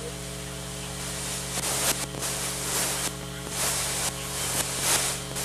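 Gas hissing as it vents from a rocket engine test stand after an aborted firing. It comes in uneven gusts over a steady electrical hum.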